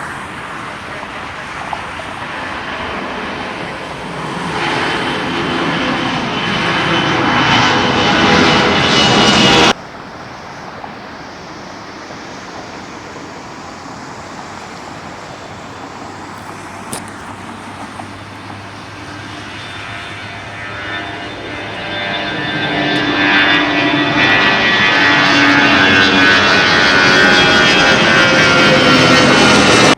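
Jet airliner engines growing louder as an aircraft passes close by, cut off abruptly about ten seconds in. After a quieter stretch, another jet's engine noise builds up again, with a whining tone, toward the end.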